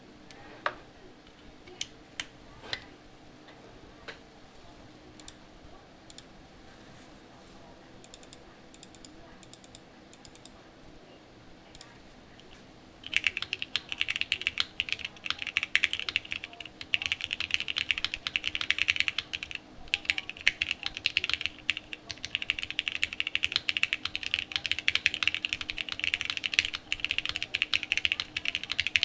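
Mechanical keyboard being typed on: a TGR Jane V2 ME, o-ring mounted, with a polypropylene plate, lubed vintage Cherry MX Black linear switches and CRP Tulip R5 keycaps. A handful of single keystrokes for the first dozen seconds or so, then steady fast typing from about halfway through.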